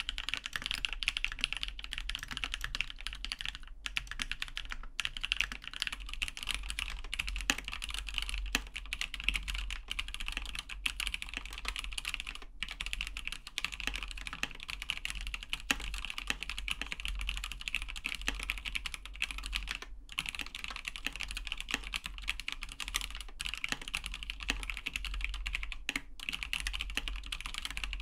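Continuous typing on mechanical keyboards: first a Monstargear Alu XO v3 with fully lubed Ethereal Panda switches, then, about six seconds in, a Ninja87 acrylic XO with stock Equalz Tangerine switches. The key presses run fast and steady, with a few short pauses.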